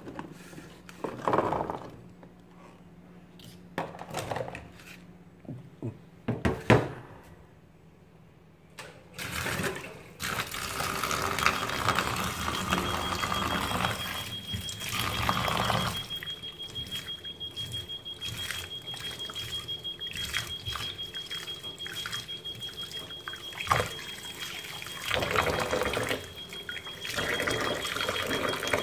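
Knocks and clicks of plastic being handled. From about ten seconds in, a kitchen tap runs steadily into a plastic bowl of blueberries in a stainless steel sink while a hand swirls the berries in the water. A thin steady high whistle sounds through much of the running water.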